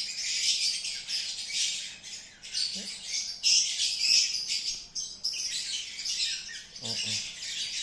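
Birds chirping and twittering continuously in quick, irregular clusters. There are two brief, low voice-like sounds, about three and seven seconds in.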